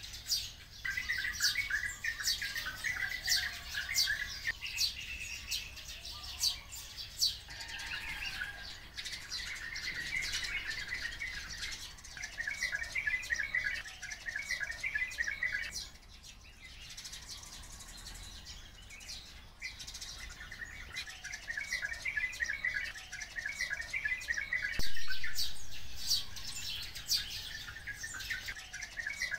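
A flock of oriental white-eyes and sparrows calling together: many quick high chirps with repeated bouts of a fast, buzzy trill. A sharp click about 25 seconds in is followed by the loudest burst of chirping.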